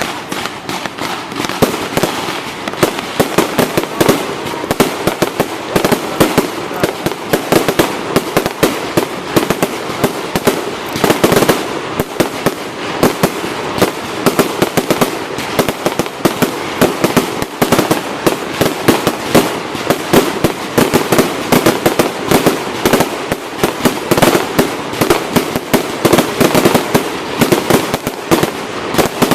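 Fireworks display going off continuously: a dense, rapid run of sharp bangs, several a second, with no let-up.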